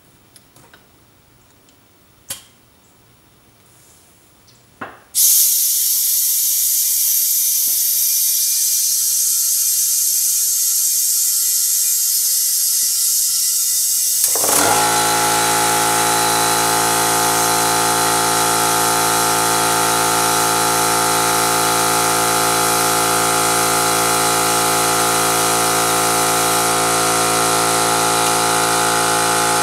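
Compressed air hissing loudly through an air chuck into a lawn mower tire whose bead is being forced to seal. About nine seconds later the air compressor's motor kicks on and runs steadily under the hiss.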